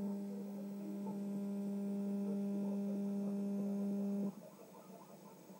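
Steady low electrical hum from the playback of a water-damaged VHS tape, cutting off suddenly about four seconds in and leaving a faint crackle.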